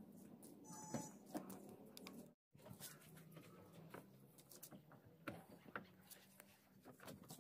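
Near silence, with faint scattered taps and rustles and a brief dead dropout about two and a half seconds in.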